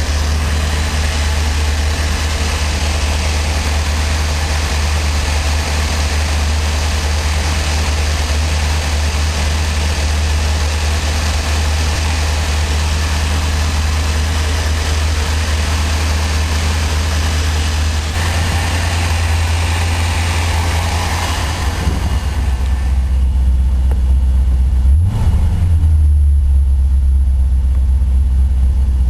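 1984 Corvette's 5.7-litre Cross-Fire Injection V8 idling steadily on a cold start at about 25 °F, run to check for a cold rough idle. A hissing layer over the engine note drops away about three-quarters through, and shortly after, the engine's pitch briefly dips and comes back.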